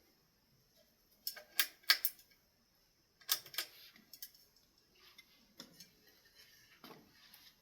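Sharp clicks and light clatters of small hard parts being handled, in a quick cluster a little over a second in and another about three seconds in, then fainter scattered clicks and rustling.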